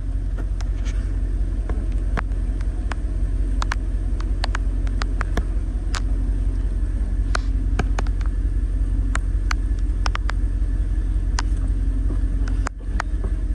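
Truck engine running steadily under load as the driver tries to drive the truck out of deep mud where it is stuck, with scattered sharp clicks and knocks over a heavy low rumble. It cuts out briefly near the end.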